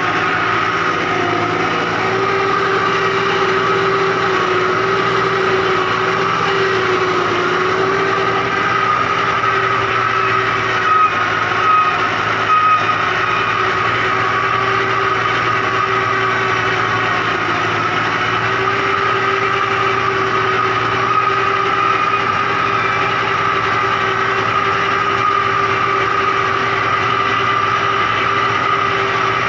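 A 640 tractor's diesel engine running steadily at about 1800 rpm while it drives a rotavator tilling the soil, with a steady mechanical whine over the engine note. A few brief louder knocks come about eleven to thirteen seconds in.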